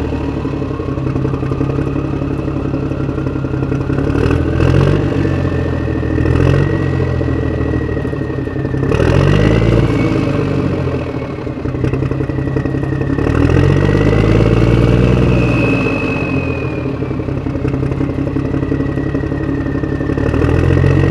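Small battery-powered DC motor driving a homemade soda-can road roller. Its whine rises over the first few seconds and then wavers up and down, with a few knocks along the way.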